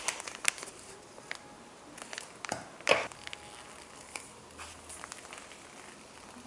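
Plastic ice pack pouch crinkling in the hands as it is squeezed to push the gel out, in short scattered crackles and rustles, the loudest about three seconds in.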